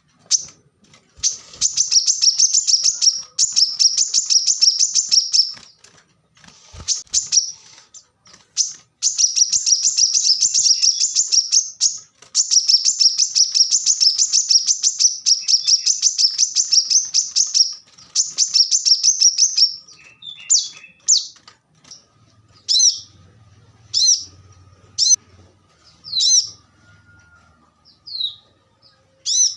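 Brown-throated sunbird (kolibri kelapa) singing: long runs of rapid, high trilled chattering broken by short pauses. About two-thirds of the way through, the song gives way to single sharp chirps roughly once a second.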